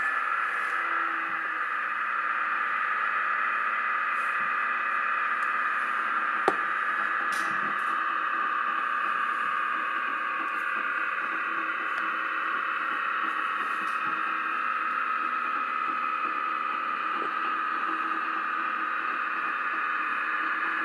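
Steady diesel engine sound from a DCC sound-fitted OO gauge model train, played through the model's small onboard speaker as a hissy, tinny drone. There is one sharp click about six and a half seconds in.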